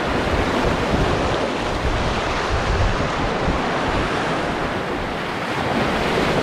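Sea surf washing and splashing over the concrete tetrapods of a breakwater, a steady rushing wash, with wind buffeting the microphone.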